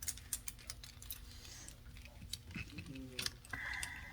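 Light clicks and ticks of steel hair-cutting shears being handled, opened and closed, as they are readied to cut a lock of hair. A brief high, steady tone sounds near the end.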